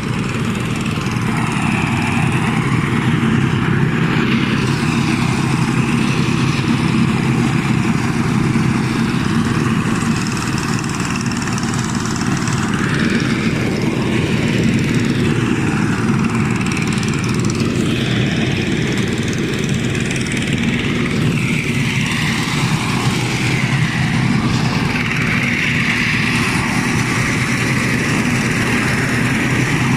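A small engine running steadily at a constant speed, without a break.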